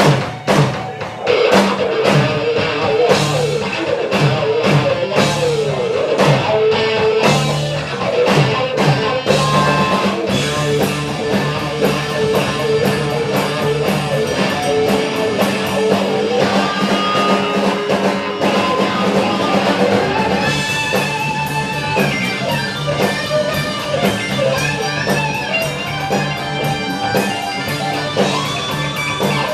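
Live rock band playing: electric guitar with sliding notes over a steady bass line and a drum kit.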